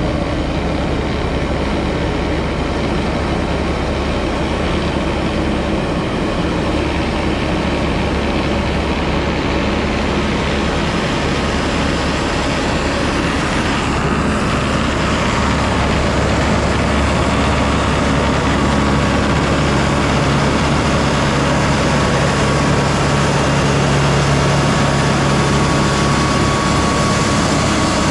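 Large farm engine running steadily, with a low, even drone that grows slightly louder and stronger in the second half.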